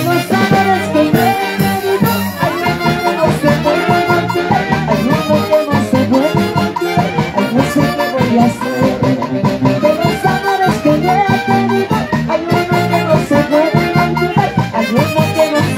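Live Peruvian huayno orchestra playing an instrumental passage, with saxophones and brass carrying the melody over a steady bass and percussion beat.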